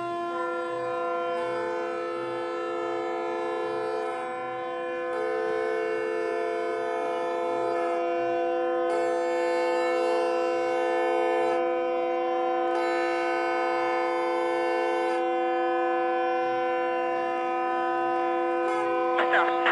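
Several ships' horns sound together as a sustained chord, played as instruments in a composition. A further horn blasts four times over the held chord, each blast about three seconds long. A short burst of noise comes near the end.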